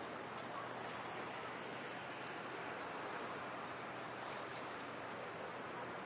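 Steady soft outdoor background noise, an even hiss with no distinct events.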